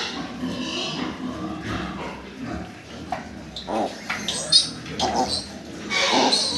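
Piglet squealing in several short cries while it is held and its mouth is handled.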